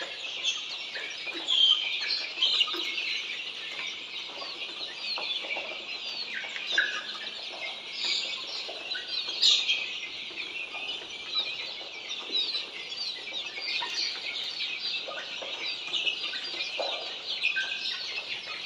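A large flock of Australorp chicks peeping continuously, many short high calls overlapping into a steady chorus, with a few louder peeps standing out.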